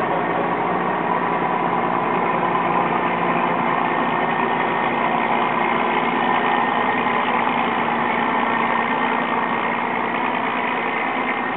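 Steady hum of a large passenger ferry's engines as the ship pulls away from the quay, with constant noise beneath it that does not rise or fall.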